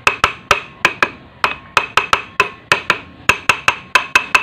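Gentle hammer taps, about three or four a second, driving the centrifugal unit onto the crankshaft of a Bajaj CT 100 engine; each tap rings briefly like metal.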